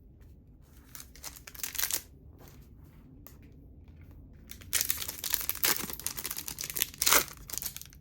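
A foil trading-card pack wrapper being torn open and crinkled by hand: a short rustle about a second in, then a longer stretch of tearing and crinkling from about five seconds in.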